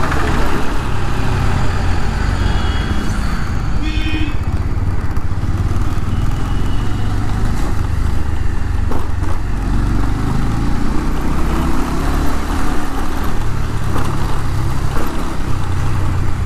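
Motorcycle riding along a street, its engine and the road and wind noise making a steady low rumble. A couple of brief high beeps sound about three to four seconds in.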